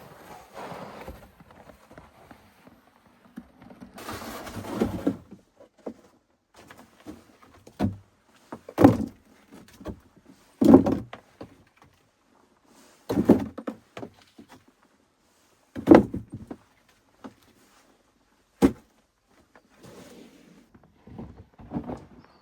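A series of dull, heavy thuds, about six of them a couple of seconds apart, with fainter rustling and shuffling between them.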